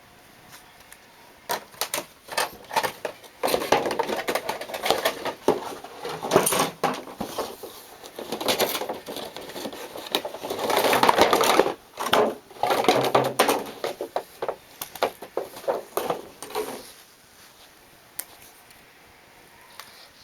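Toy wands being taken out of their boxes and packaging by hand: many clicks, knocks and rustles, busiest from about three to seventeen seconds in, then dying away.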